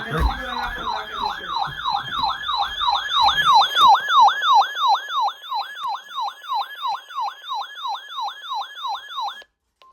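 Electronic yelp siren tone, a fast falling sweep repeating about three times a second, opening with a low thump and cutting off abruptly near the end.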